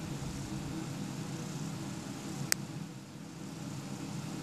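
Steady low hum of background room noise, with one sharp, short click about two and a half seconds in.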